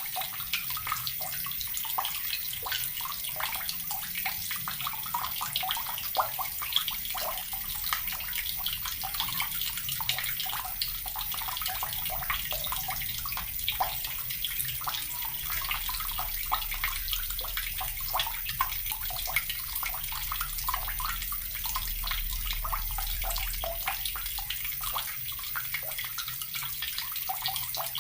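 Tap water running steadily and splashing, a continuous hiss full of small splashes and drips.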